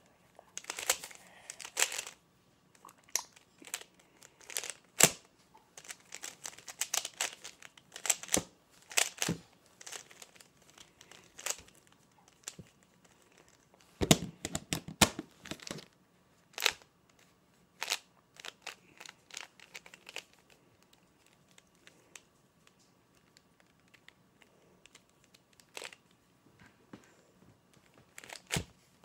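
A 3x3 Rubik's cube being twisted by hand, its plastic layers clicking as they turn. The twists come in quick runs with pauses between: the busiest run is about halfway through, then only a few clicks follow.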